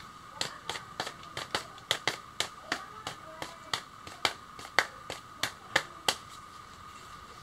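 A run of about twenty sharp clicks or snaps at an uneven pace, roughly three a second, stopping about six seconds in.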